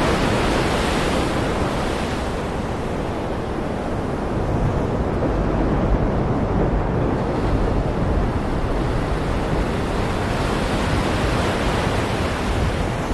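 Sea surf and wind: a steady rushing noise that swells and eases slowly every few seconds.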